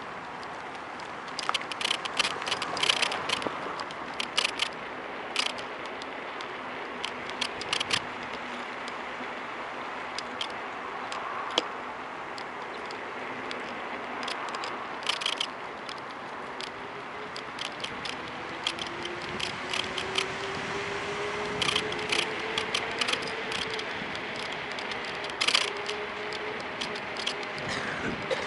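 Phone holder on a Kugoo V1 Plus electric scooter creaking and clicking irregularly over bumps while riding, over a steady rush of road and wind noise. A faint whine climbs in pitch for a few seconds past the middle.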